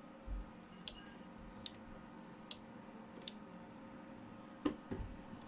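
Koolatron mini vending machine ticking at a steady pace, about one sharp tick every 0.8 seconds, over a faint hum, with a soft thump near the start and a louder knock near the end.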